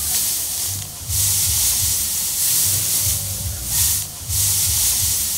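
Dry rice straw rustling and crackling in a loud hiss as it is scooped up and gathered by hand, swelling and fading with each armful. A low rhythmic thudding runs underneath.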